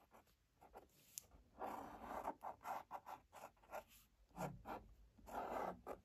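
Marker pen scratching across paper in quick short strokes while drawing, quiet at first, then a steady run of scratchy strokes from about a second and a half in.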